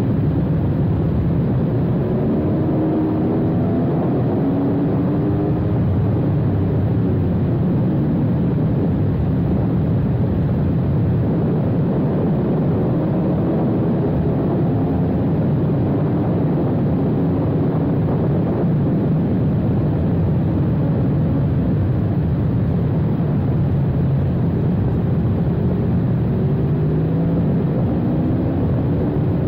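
Aprilia Tuono V4 1100 RR's V4 engine running hard around a race track, its revs repeatedly climbing and falling through the gears and corners. Heard onboard at speed over a steady rush of wind.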